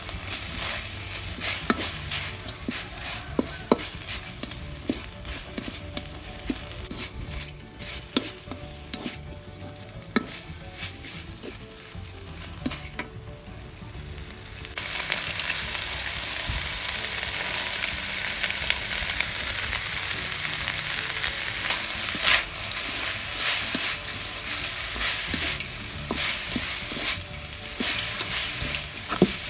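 Wooden spatula stirring and scraping crumbly minced pork around a stainless steel wok, with frying sizzle and scattered scrapes and taps. About halfway through, the sizzle turns suddenly louder and steadier.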